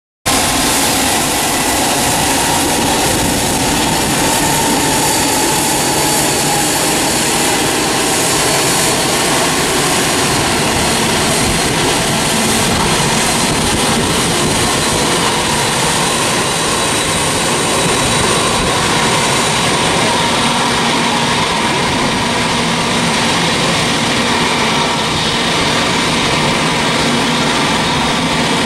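Boeing 767-300F freighter's twin turbofan engines running at taxi power before takeoff: a steady jet rumble and hiss with a faint high whine.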